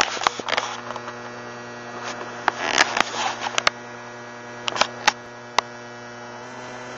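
A steady electrical hum, with a dozen or so sharp clicks and knocks scattered through it and a short hiss about three seconds in; the clicks stop after about five and a half seconds.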